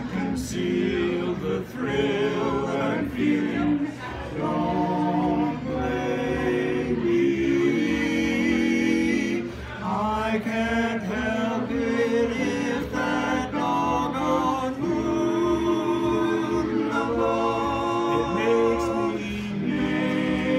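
Male vocal quartet singing a cappella in four-part harmony, holding chords that change every second or two.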